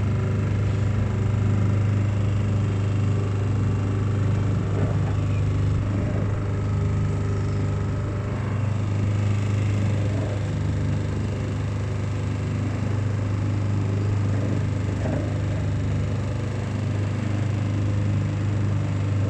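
Small motor boat's engine running steadily at cruising speed, a constant low hum that holds one pitch.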